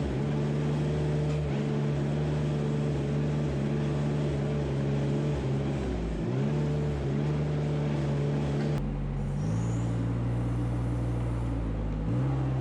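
Engine of a farm machine running steadily, its note sagging briefly and recovering about six seconds in. The engine sound changes abruptly to a lower note about nine seconds in.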